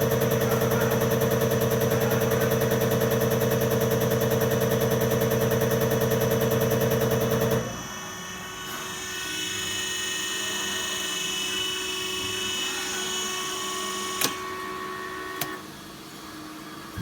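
Common rail injector and pump test bench running: a steady machine hum with a strong tone and a fast, even pulsing, which shuts off abruptly about halfway through. A quieter hum remains, with two sharp clicks near the end.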